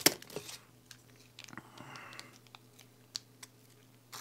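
Quiet close-miked eating sounds: pizza being chewed with a few sharp mouth clicks, and a light paper rustle a little before halfway as slices are moved about on the paper liner.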